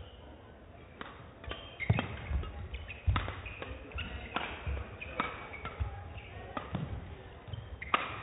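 Badminton rally: rackets striking the shuttlecock in a fast exchange, a sharp crack about once a second, with court shoes squeaking and thudding on the court mat between hits.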